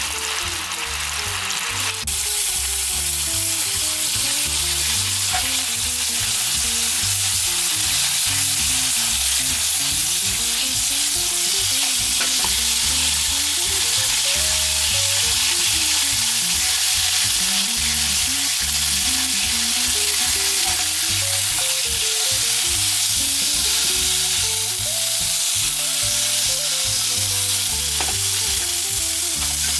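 Wiener sausages sizzling in an oil-free nonstick frying pan, the last of the boiling water cooking off until they fry in their own fat. The sizzle is a steady hiss, with the pan being shaken and the sausages moved about.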